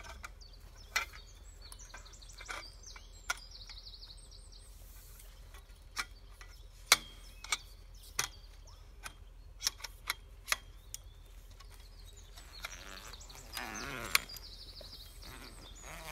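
Scattered sharp clicks and clinks of aluminium tent poles being handled and fitted together. Birds sing in trills a couple of seconds in and again near the end, and a rustle comes about two-thirds of the way through.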